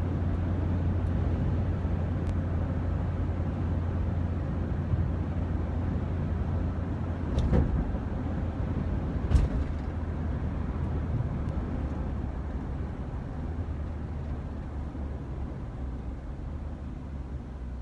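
Car on the move: a steady low rumble of engine and road noise, with two short knocks about seven and nine seconds in, easing off toward the end.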